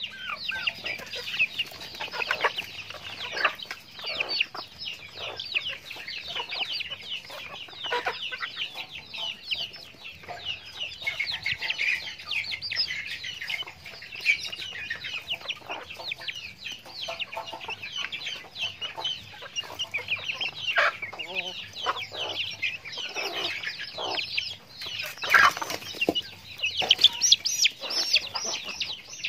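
Backyard chickens clucking as they feed, over a dense, continuous high-pitched chatter of short calls, with louder calls near the end.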